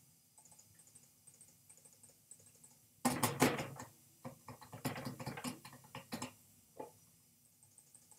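A flurry of rapid clicking and clattering at a computer, running for about three seconds from about three seconds in, with one last single click shortly after. Before it there is a faint, regular high ticking.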